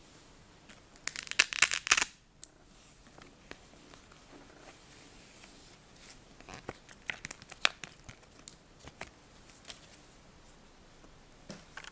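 Paper envelope being torn open in a loud crackly burst about a second in, followed by scattered short rustles and crinkles of paper packaging as the printed sheets inside are handled.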